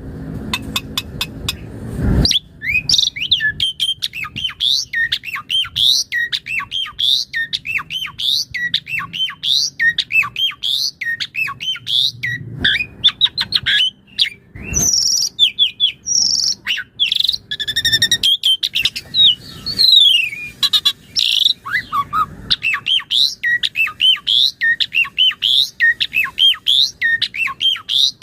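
A jalak suren (pied starling) singing in full voice: a long, rapid, unbroken run of varied whistles, chirps and squawky slurred notes, the bird showing off its repertoire of imitated calls. A short low rumble sits under the song in the first two seconds.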